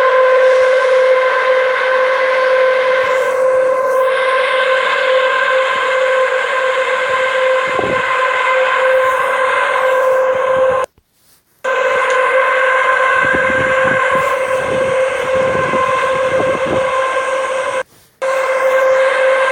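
A steady horn-like drone held on one pitch with overtones, the kind reported as a mysterious trumpet or horn sound in the sky. It breaks off abruptly for a moment about eleven seconds in and again near the end.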